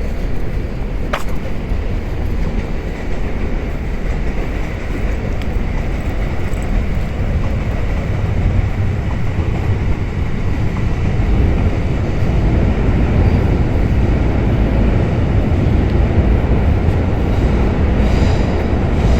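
Train running by with a steady rumble that grows louder about halfway through. A single sharp click sounds about a second in.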